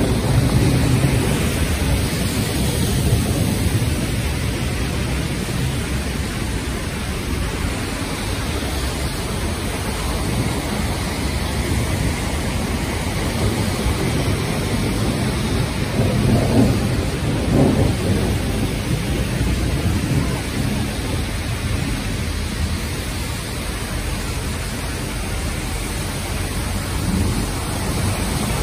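Rainstorm with thunder: a steady rain hiss over a low, rolling rumble, swelling twice about two-thirds of the way through.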